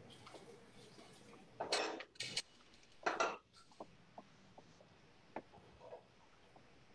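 Metal saucepan of boiling, reducing heavy cream scraping and clanking against the cast-iron grate of a gas stove in three short bursts between about one and a half and three and a half seconds in, followed by a few faint clicks.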